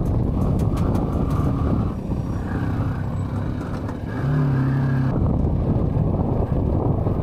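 Motorcycle on the move along a road: a loud, even rumble of wind on the rider's microphone mixed with the engine, with a brief steady hum about four seconds in.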